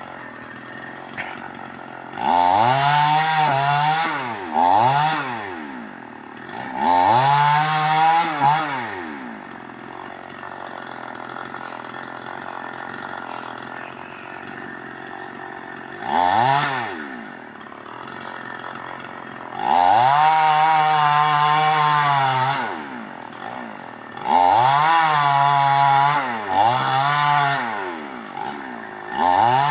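Chainsaw idling and revving up to full throttle again and again, holding each time for a second or a few seconds before dropping back to idle. Seven or so bursts, the longest near the middle and several close together near the end.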